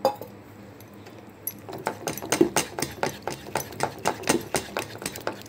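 Metal spoon beating a wet egg-and-gram-flour batter in a bowl, clicking against the bowl in a quick, even rhythm of about four or five strokes a second, starting about a second and a half in.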